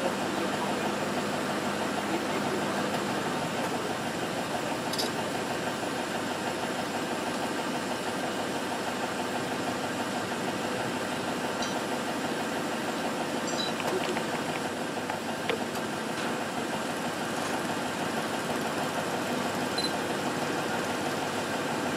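Vehicle engines idling steadily, with a few brief, faint high chirps here and there.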